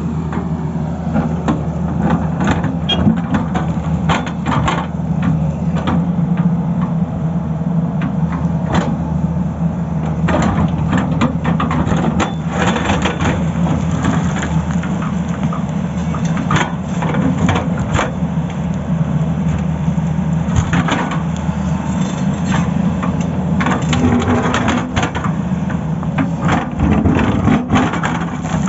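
Tata Hitachi excavator's diesel engine running steadily, with many irregular sharp cracks and knocks as the bucket cuts and breaks up the road surface.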